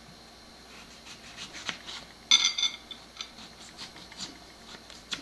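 Small kitchen knife cutting peeled red potatoes into bite-size pieces on a wooden cutting board: scattered light taps and scrapes of the blade through the potato onto the board. A louder brief ringing clink comes a little over two seconds in.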